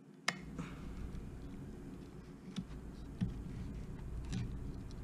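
A sharp metal click, then a few lighter clicks and ticks, as an adjustable wrench and pliers grip and twist a stuck fitting on an antique flintlock musket barrel, over a low steady rumble.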